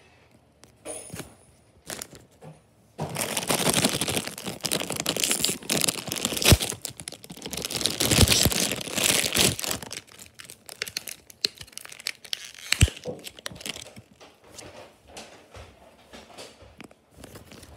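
Foil toy packet being crinkled and torn open: a few soft handling noises, then about three seconds in a dense loud crackling rustle for some seven seconds, dying down to scattered lighter crinkles and clicks.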